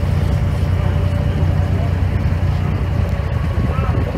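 Abra water taxi's engine running steadily under way, a low even drone with water rushing past the hull.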